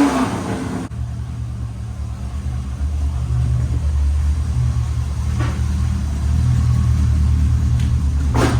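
1989 Chevrolet Corvette C4's V8 engine running with a low, steady rumble that grows a little louder twice over the stretch, with the timing freshly set to cure a misfire.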